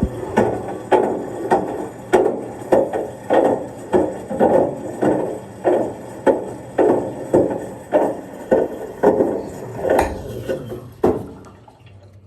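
Rhythmic knocking of a cased iPhone SE 2 tumbling against a washing machine drum, about two knocks a second, stopping about a second before the end.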